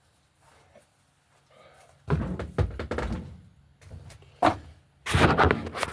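Knocks and thuds of something being handled or moved in a small room. It is quiet at first, then comes a loud clatter of several knocks about two seconds in, a single knock later, and a loud scraping burst near the end.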